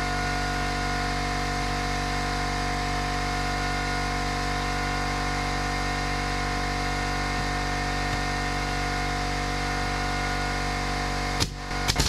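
A small engine or motor running steadily with an even hum, cutting off suddenly near the end with a couple of sharp clicks.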